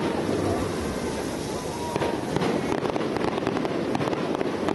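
Aerial fireworks bursting overhead: a steady, dense crackle of many quick sharp pops from glittering shell stars, with no break.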